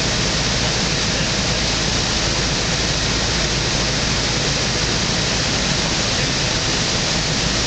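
Steady rush of airflow and engine noise in the cockpit of a Thruster T600N microlight on approach to land, with no change in power.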